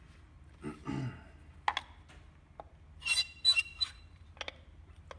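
The cylinder of an ST400i cordless fencing stapler is pushed down and squeaks in a few short, high squeaks about three seconds in, with a few light clicks and knocks from the tool around them. The squeaking is the sign of a dry, carbon- and oil-fouled cylinder that needs lubrication and a clean.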